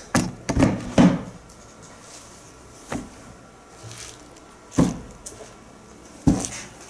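Cardboard shoe box and packaging being handled: a quick cluster of knocks and rustles, then a few single sharp knocks spaced out.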